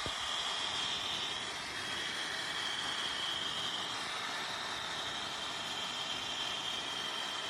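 Handheld garment steamer putting out steam: a steady hiss with a faint high whine in it.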